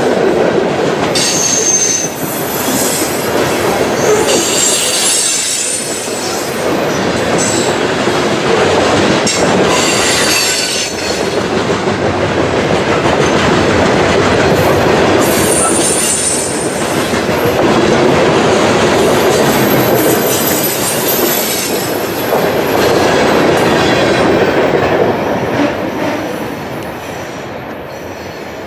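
Loaded coal hopper cars rolling past close by, their wheels rumbling on the rails, with high wheel squeals that come and go several times. Near the end the sound fades as the last car goes by.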